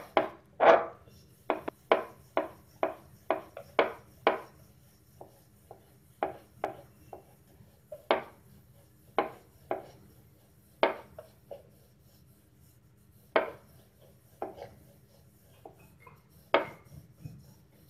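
Wooden rolling pin working dough out thin on a round wooden board, making short clacks and knocks. They come about two a second for the first few seconds, then more spaced out.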